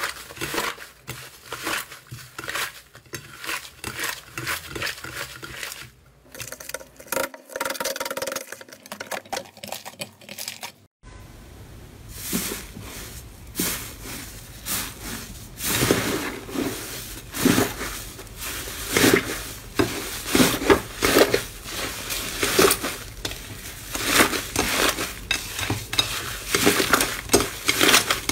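Hands kneading, squeezing and pressing fluffy cloud slime: a quick run of short squishes and crackles, one after another. The sound breaks off briefly about eleven seconds in and comes back louder.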